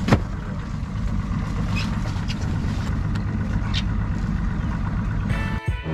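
Boat's outboard motor idling at the dock with a steady low rumble, and one sharp knock just after the start. Music comes in near the end.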